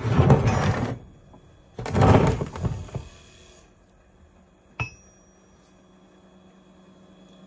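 Heavy pot magnet and metal block being handled: two loud bursts of handling noise, then one sharp metallic clink with a short ringing tone about five seconds in.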